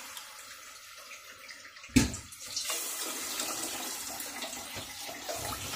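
Water poured from a glass into rice in an aluminium pressure cooker, measuring the cooking water. A single sharp knock about two seconds in, then a steady splashing pour.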